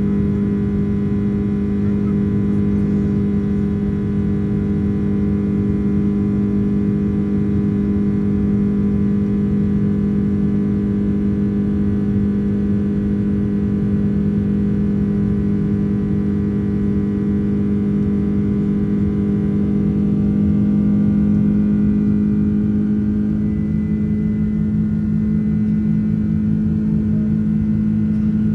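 Boeing 767-300ER cabin noise in the climb: a steady jet engine drone with a strong low hum and a stack of steady tones above it. The tone shifts slightly about two-thirds of the way through.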